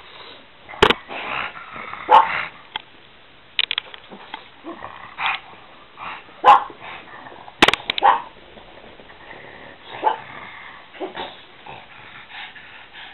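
A bull terrier and a pug play-fighting: short barks and yips come irregularly throughout, with a couple of sharp knocks.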